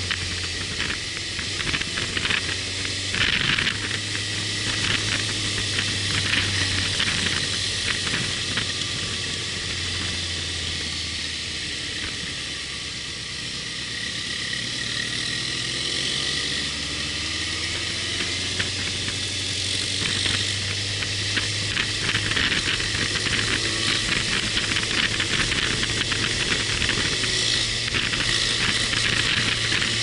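Wind rushing over the microphone of a moving motorcycle, with the bike's engine running as a low drone underneath. The engine eases off about halfway through, then picks up again.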